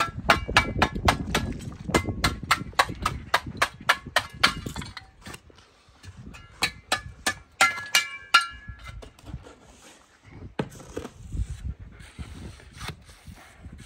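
Rapid run of sharp metallic knocks with a short ring, about three to four a second for some eight seconds, then only a few scattered knocks: a masonry hand tool striking brick.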